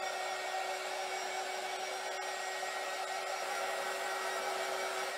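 Small handheld craft heat gun running steadily, a constant whine over the rush of blown hot air, drying wet Mod Podge on decoupaged scrapbook paper.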